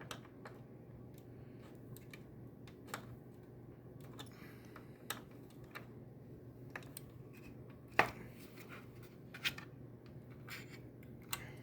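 Small scratches and light clicks of a screwdriver working at a tight, tiny screw in an Xbox power brick's casing, with one sharper click about eight seconds in, over a low steady hum.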